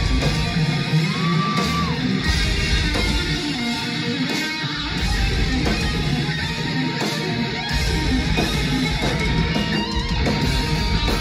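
Live rock band playing electric guitars and drums at concert volume.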